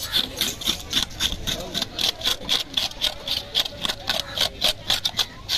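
Knife blade scraping the scales off a large golden trevally in quick, even strokes, about four a second.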